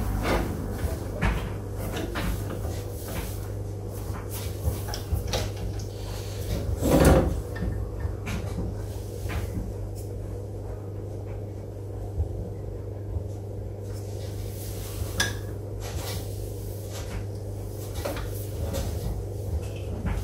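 Scattered knocks and bumps as a wooden bowl is seated and nudged into centre on a wood lathe, the loudest about seven seconds in, over a steady machine hum.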